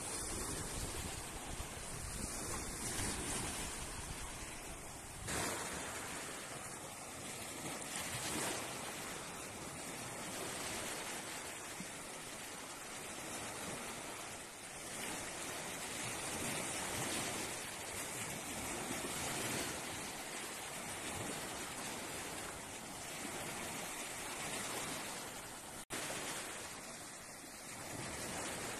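Small sea waves washing and breaking on a sandy beach, a steady hiss that swells and eases. Wind rumbles on the microphone during the first few seconds.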